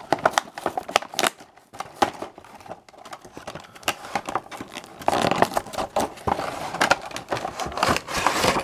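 Clear plastic packaging of a Hot Wheels 5-pack crinkling and crackling as it is handled and pulled open by hand, with scattered clicks. The crinkling grows denser about five seconds in and again near the end.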